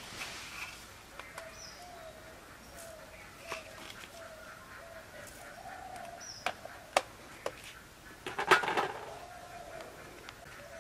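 A bird calling repeatedly in the background, a short single-pitched note about twice a second. Light clicks and a brief clatter of bowls and utensils are handled close by, the clatter loudest near the end.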